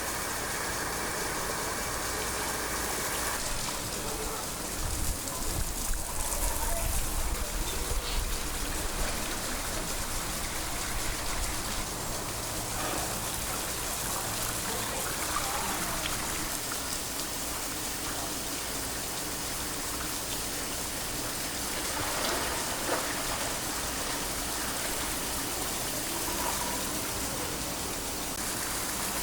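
Steady rushing of water, an even hiss with no pauses.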